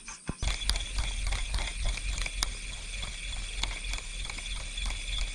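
Spinning reel being cranked to retrieve a topwater frog lure, a quick clicking rattle over a low rumble that starts about half a second in. Insects buzz steadily behind it.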